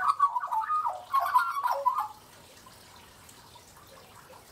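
Australian magpie song: a run of clear, warbling notes that glide and step in pitch, stopping about two seconds in.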